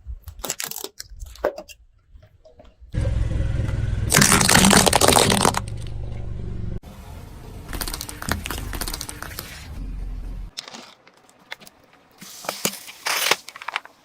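Car tyres rolling over and crushing brittle items, with bursts of cracking and crackling, the loudest about four seconds in. A low vehicle rumble runs under the middle part, and the sound changes abruptly several times as separate takes are cut together.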